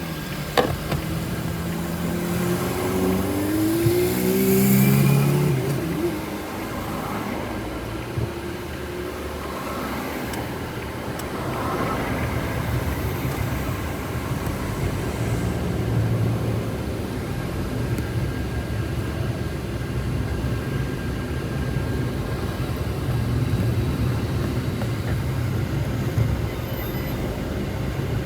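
An engine running with a steady low hum, its pitch rising for a couple of seconds a few seconds in, with a sharp click near the start.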